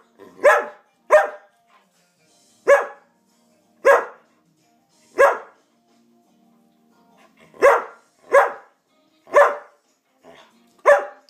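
Samoyed demand-barking for treats: about nine loud, short barks in irregular groups, with a pause of about two seconds midway.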